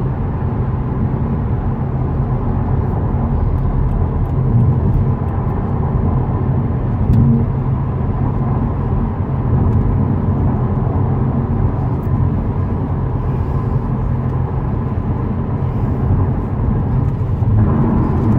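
Tyre road noise inside the cabin of a 2018 Subaru WRX STI: a steady low rumble from hard Yokohama Advan tyres on a road grooved for drainage, with a faint steady high-pitched ringing.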